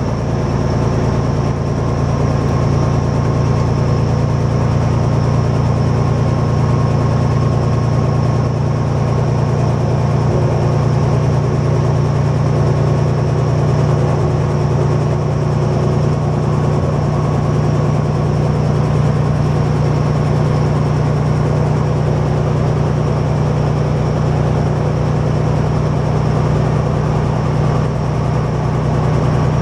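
Vintage Árpád diesel railbus running along the track, heard from inside its driver's cab: a steady engine drone mixed with the running noise of the wheels on the rails.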